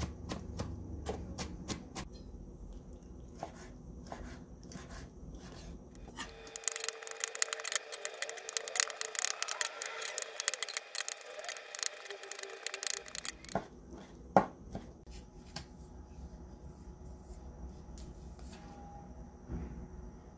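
Kitchen knife chopping on a wooden cutting board. Repeated taps of the blade on the board build to a fast, dense run of chopping through peeled blanched tomatoes in the middle, then thin out to sparser taps, with one sharp knock about two-thirds through.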